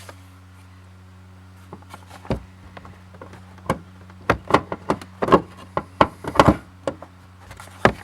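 Irregular sharp knocks and clacks as the fuel pump control module and its mounting parts are handled and fitted into place, coming quickly in the middle and ending with one more near the end, over a steady low hum.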